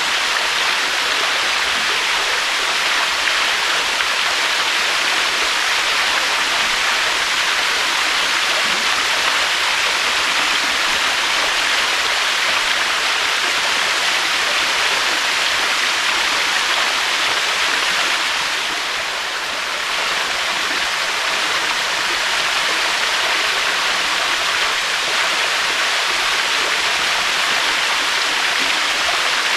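Waterfall: a steady, dense rush of falling water, easing slightly for a moment about two-thirds of the way through.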